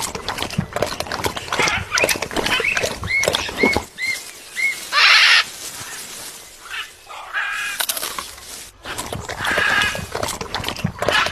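A parrot's clicks and short calls: a run of about five quick chirps, then a single harsh squawk, with more chattering calls later.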